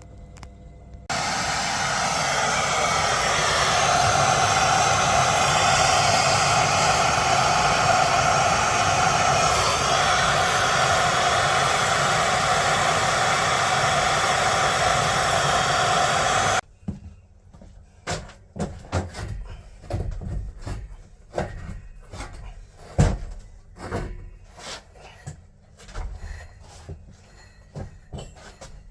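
A power tool's motor runs steadily at full speed for about fifteen seconds, starting and stopping abruptly. Then comes a string of separate knocks and clanks as metal parts and tools are handled.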